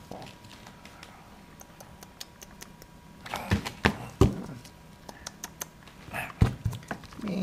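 Small plastic toy figures being tapped, set down and scraped on a ground of shredded bark and moss close to the microphone: scattered clicks and knocks, busiest around the middle, with a couple of brief vocal sounds.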